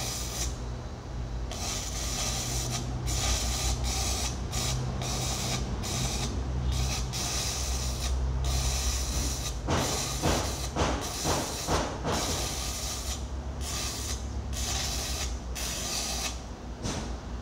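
Electric arc welding on the steel teeth of an excavator bucket: a steady crackling hiss from the arc that breaks off for a moment again and again, over a low steady hum, with a rougher pulsing stretch about ten seconds in.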